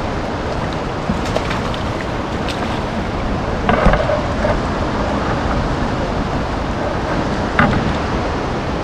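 Steady rushing noise of water and wind on the microphone, with a short clatter about four seconds in and a brief knock near the end.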